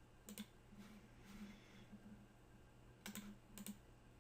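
Faint clicks of a computer mouse and keyboard being worked, one shortly after the start and two close together about three seconds in, over a steady low hum.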